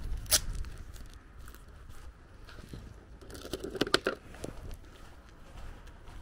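Footsteps on a wet dirt lane, with a sharp click shortly after the start. About three and a half seconds in comes a short burst of crinkling and crackling as a paper card and a plastic bottle are handled; this is the loudest part.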